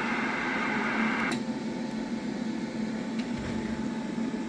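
Steady hum and hiss from a CB radio and tube linear amplifier setup. About a second and a half in there is a click, and the higher hiss cuts off, leaving the low hum: the radio switching from receive static to transmitting a dead-key carrier through the amplifier.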